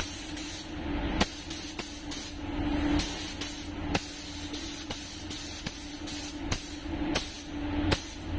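Paint spray booth's ventilation running steadily with a hum, with several sharp clicks and knocks from handling the spray gun in between sprays.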